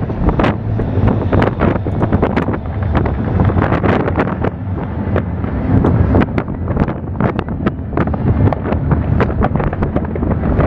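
Fireworks display going off in rapid, overlapping bangs and crackles, over a steady low rumble of wind on the microphone.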